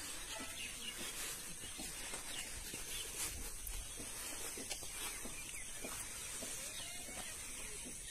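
Quiet outdoor ambience: a steady hiss with faint, scattered bird chirps.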